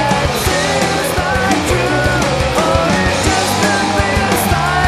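Loud punk-rock style music with a steady drum beat and a gliding melodic line over it.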